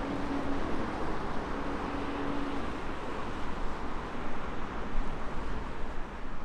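Jet airliner landing, a steady broad engine roar with a faint hum that fades in the first few seconds; the sound drops away suddenly at the end.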